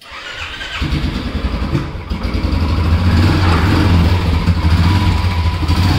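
Royal Enfield motorcycle's single-cylinder engine running with its low dug-dug thump, growing louder over the first three seconds and then holding steady.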